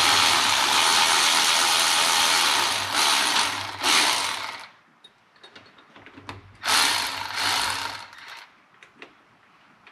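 Power ratchet running in two long bursts, spinning out the bolts on the Can-Am Maverick 1000 engine's cylinder head. The first burst runs until about halfway through, with brief stutters. The second, shorter burst comes a couple of seconds later, followed by a few light metal clinks.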